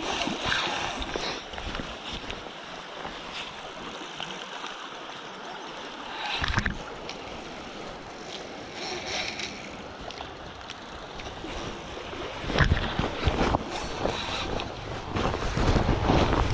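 Rustling and bumping of a body-worn camera as its wearer moves along a grassy riverbank, over the steady rush of the river. A louder bump comes about six seconds in, and the handling noise grows busier near the end.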